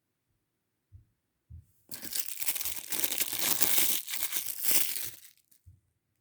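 Crinkling and rustling of handled packaging for about three and a half seconds, preceded by two soft bumps.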